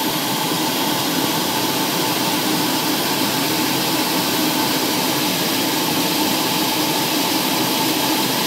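Steady aircraft noise heard from inside the cabin in flight: an even rushing hiss of engine and airflow with a faint steady hum, unchanging throughout.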